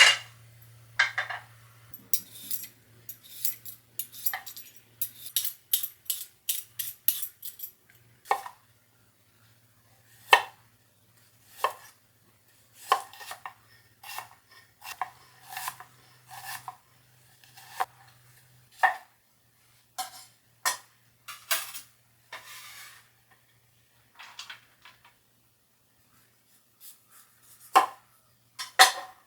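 Kitchen utensils knocking and clinking in an irregular run of sharp taps with short ringing tails, busiest in the first few seconds, with a sparse lull a little before the end.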